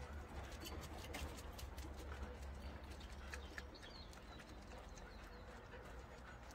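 Faint scattered clicking and tapping of Jindo dogs' claws on the paved yard as the dogs shuffle and step about, busiest in the first few seconds and thinning out after, over a low steady rumble.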